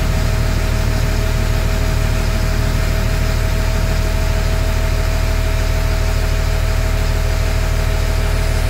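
LMTV's diesel engine idling steadily, heard from inside the cab, while it builds air pressure to refill the wet tank.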